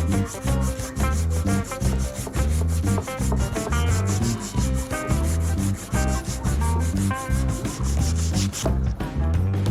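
Instrumental background music with a steady beat: a repeating bass line and quick, even percussion strokes over it.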